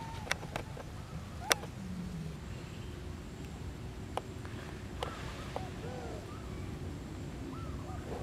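Several short calls that rise and fall in pitch, mixed with scattered sharp clicks; a faint steady hum comes in about three seconds in.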